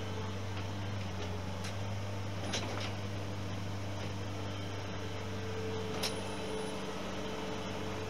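Skid steer engine running steadily as a low, even hum, with two sharp clicks about two and a half seconds in and again some three seconds later.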